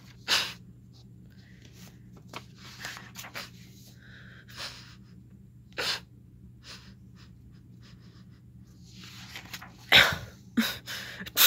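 A string of human sneezes and sniffles, performed for cartoon characters sick with colds. They come as short sudden bursts scattered through, and the loudest are about ten seconds in and near the end.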